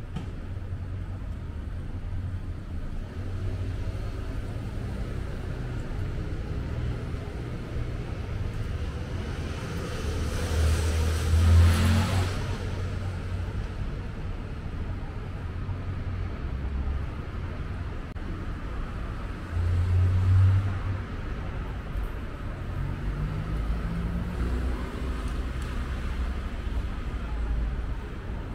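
City street traffic: a steady low rumble, with a vehicle passing close about eleven seconds in, the loudest moment, and a brief low swell near twenty seconds. A little later an engine rises in pitch as it speeds up.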